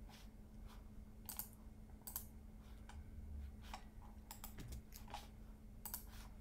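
Faint, irregular clicks of a computer keyboard and mouse, about a dozen scattered over several seconds. A faint steady low hum runs underneath.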